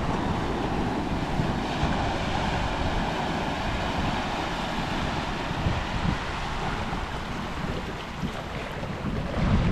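Small surf washing steadily onto a sandy beach, with wind buffeting the microphone in a low rumble.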